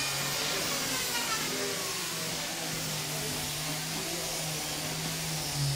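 Workshop power tools running: a steady electric motor hum that shifts slightly in pitch, over a high hiss, as handheld power tools work MDF furniture panels.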